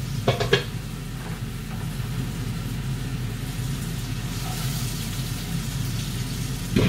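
Food sizzling in a frying pan, a steady hiss over a constant low hum, with a few short knocks just after the start.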